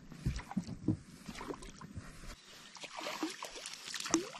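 Faint, irregular small water splashes and light clicks: a perch chomping and splashing at a topwater lure.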